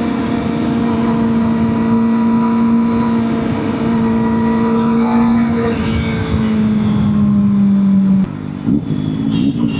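Kawasaki ZX-4RR's 399 cc inline-four through a Scorpion slip-on exhaust, running at steady high revs under way. The note dips slightly about six seconds in, cuts back sharply a little after eight seconds, then wavers up and down as the revs change.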